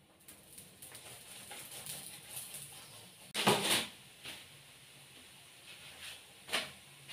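Chapati cooking on a flat pan: oil crackling lightly after being spooned on, with handling noises, a loud thump about three and a half seconds in and a shorter one near the end.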